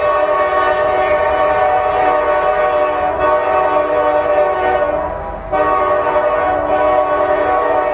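CSX diesel locomotive's air horn sounding a chord in long, loud blasts, broken briefly about three seconds in and again about five and a half seconds in.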